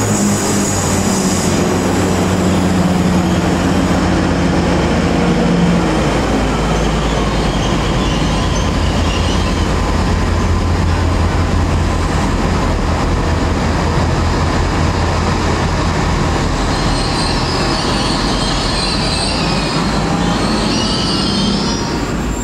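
GWR passenger train rolling slowly along a station platform: a loud steady rumble with a low hum. The wheels squeal high on the rails about eight seconds in and again near the end.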